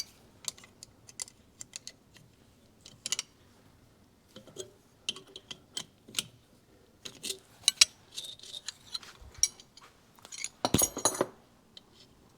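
Steel nuts and wrenches clicking and clinking on cylinder studs as pairs of nuts are run on and tightened against each other to snug the studs into the engine case. A denser run of metal clinks comes near the end.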